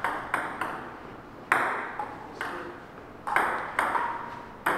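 Table tennis rally: the celluloid ball clicking sharply off the paddles and the table, about eight hits at an uneven pace, each with a brief ring after it.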